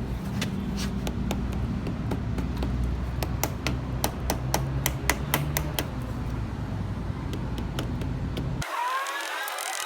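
Suzuki Raider 150 Fi's single-cylinder engine running, with a steady low hum and many irregular sharp clicks or knocks over it for the first six seconds or so.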